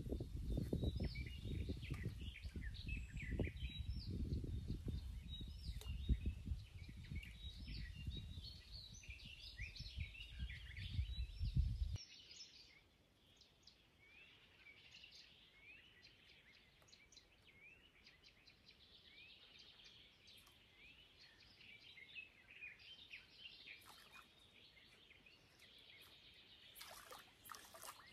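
Several small birds chirping and singing. A low rumbling noise lies under the first twelve seconds and cuts off abruptly, after which the birdsong carries on alone, with a few short clicks near the end.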